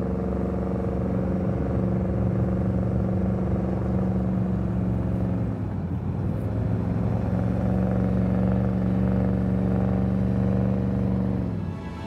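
Porsche Cayenne's engine running steadily under heavy load, with a brief dip and waver in its pitch about halfway through, then dying away near the end.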